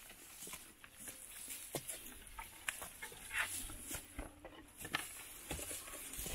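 Footsteps on a dry, overgrown trail, with irregular crackling and brushing as the walkers push through dry grass, twigs and leaves.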